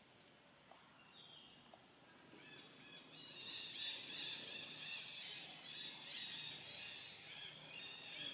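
Birds chirping: a few faint scattered chirps at first, then a louder, dense high-pitched chirping from about three seconds in.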